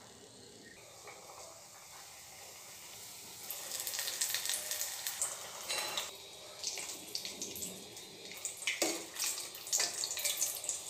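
Hot oil sizzling and crackling around wheat-flour snack rolls being deep-fried, setting in about three and a half seconds in and going on with uneven bursts of crackle.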